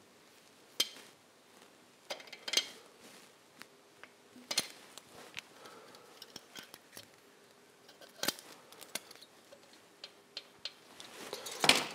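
Scattered light metallic clicks and clinks of a small spanner and a feeler gauge on the rocker's tappet adjuster and lock nut while the valve clearance of a Triumph Tiger T100 is being set.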